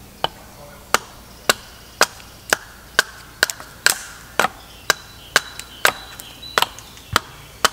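Axe chopping into a piece of wood braced on a chopping stump, about fifteen sharp strikes at roughly two a second: quick stop cuts and material being cut away up to them.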